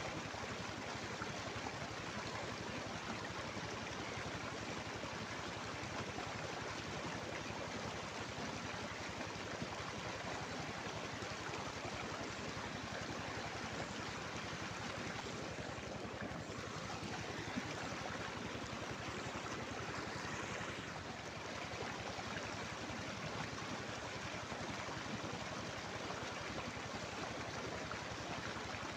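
Steady rush of flowing river water along the bank.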